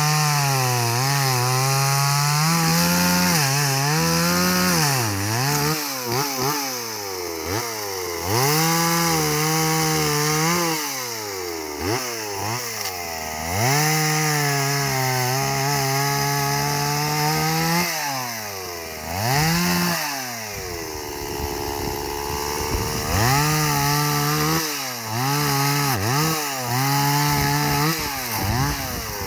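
Stihl two-stroke chainsaw cutting wood. The engine revs high, then dips in pitch again and again as the chain bites into the wood and comes free. For a few seconds about two-thirds of the way through it drops back to a lower, quieter speed, then revs up again.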